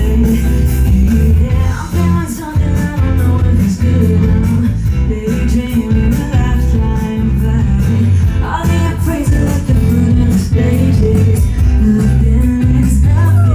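Live rock band performing a song, with a singer and guitar, loud and continuous.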